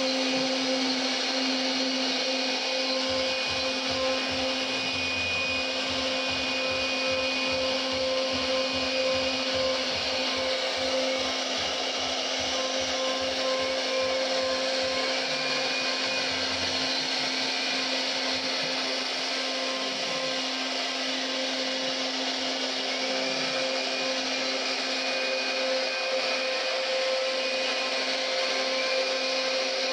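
CNC router's high-speed spindle motor running with a steady whine as the bit carves wood, with small shifts in pitch now and then.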